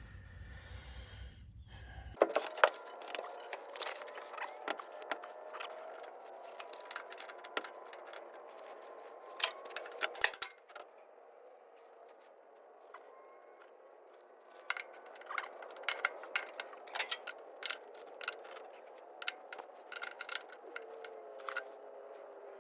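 Metal wrenches clinking, rattling and scraping in irregular bursts against hydraulic hose fittings that are too tight to break loose, with a quieter pause about halfway through.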